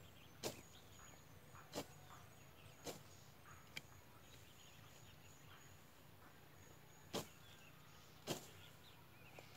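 A hand blade slashing through tall dry grass while clearing a field: six sharp strokes, about a second apart, with a pause of a few seconds in the middle.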